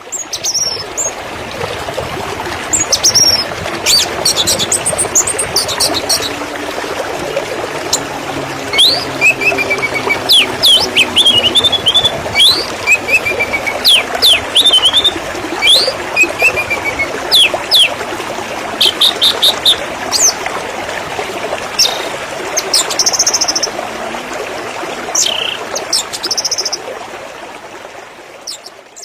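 Songbirds chirping and singing, many short calls and trills, over the steady rush of running water. The sound fades out near the end.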